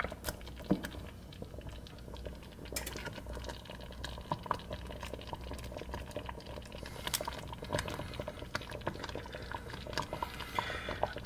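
Thick chicken mole sauce simmering in a saucepan: faint, scattered small pops of bubbling, over a low steady hum.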